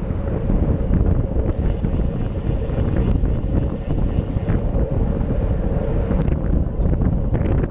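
Steady wind rush over the microphone of a handlebar-mounted camera on a road bike riding at speed.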